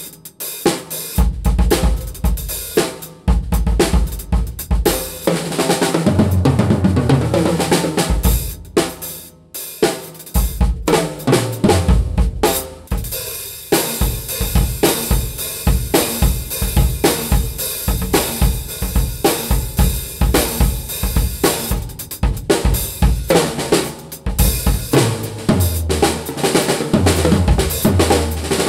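Mapex VX acoustic drum kit played in grooves and fills: snare, bass drum, hi-hat and cymbals, first with the drums at a medium tuning, then, after a brief break about twelve seconds in, with the drums tuned low. Cymbals ring steadily through the second half, and deep tom runs come about six seconds in and near the end.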